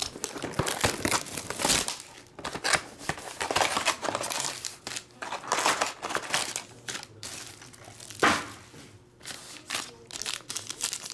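Plastic and foil wrapping on trading-card boxes and packs being torn open and crumpled by hand: a run of irregular crinkles and rips, with one louder rip about eight seconds in.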